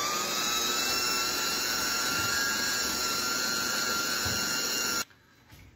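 Small KitchenAid food processor motor running at speed, churning heavy cream that has turned to butter, with a steady high whine. It cuts off suddenly about five seconds in.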